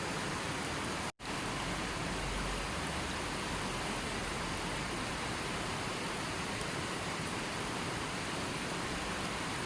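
Steady rushing noise of falling or running water, even across all pitches, with one complete dropout for a split second about a second in.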